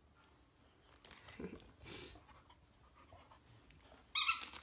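A dog nosing into an Easter basket: faint sniffing and rustling, then a short, loud, hissy noise about four seconds in.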